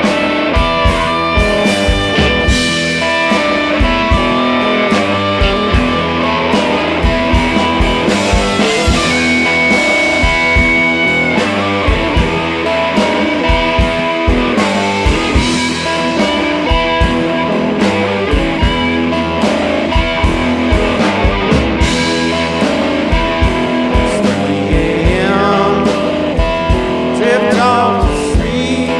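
Rock music with electric guitar and a steady drum beat, a blues-rock song with a singing voice.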